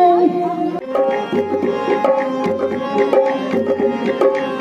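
A sung note is held and ends about a second in. Then harmonium and dholak (two-headed barrel drum) play an instrumental interlude: sustained harmonium chords over quick drum strokes, with a deep bass stroke about once a second.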